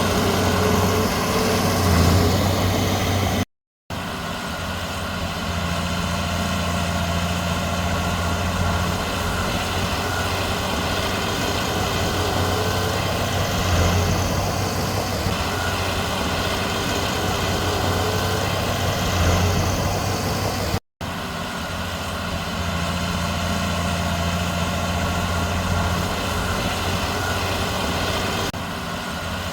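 Heavy diesel earthmoving machinery running steadily, a low engine drone from the bulldozer and dump trucks loading soil, with a few brief swells in engine speed. The sound cuts out twice for a moment.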